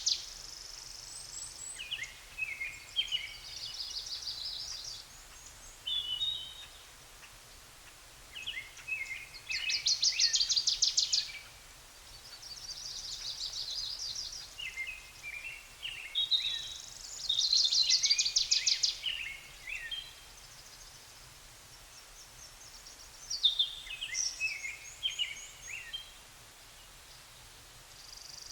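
Songbirds singing outdoors: a repeated song phrase of fast, high trills followed by lower twittering notes, coming round every six seconds or so, over a faint steady background hiss.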